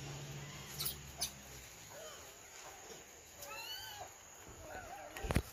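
Rhesus macaques giving short, squeaky arching calls, several together a little past halfway. A couple of light clicks come about a second in, and a sharp tap near the end.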